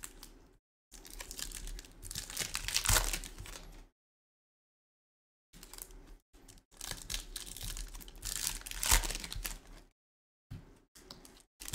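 Topps Chrome F1 Lite trading-card pack wrappers being torn open and crinkled, and cards handled, in bursts with sudden dead-silent gaps between.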